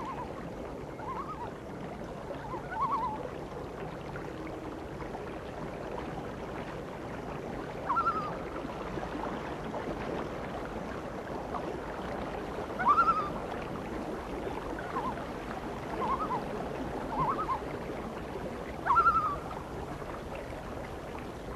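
A cat meowing repeatedly: about nine short meows, each rising then falling, coming every one to five seconds over a steady hiss.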